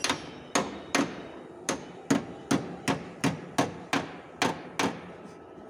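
Hammer striking sheet metal in repeated, evenly spaced blows, about two or three a second, each with a short metallic ring, stopping about five seconds in: bodywork on a car's rear fender panel.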